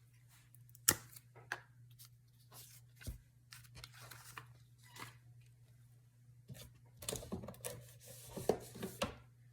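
Tabletop paper-crafting handling sounds: a sharp click about a second in, a few light taps and a soft thump, then paper rustling and rubbing, as of a glue stick being worked over paper, near the end. A faint steady hum runs underneath.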